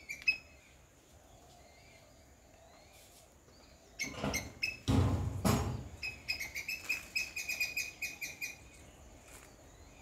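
Sharp, high-pitched chirping calls of the kind a palm squirrel makes. A rapid run of chirps comes in the second half, after a brief loud rustling burst with a low rumble midway.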